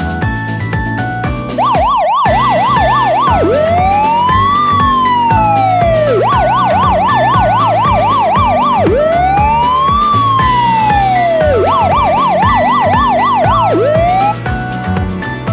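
An emergency-vehicle siren sound effect over background music. Fast up-and-down yelps alternate with slow rising-and-falling wails, three rounds in all. It starts about a second and a half in and cuts off shortly before the end.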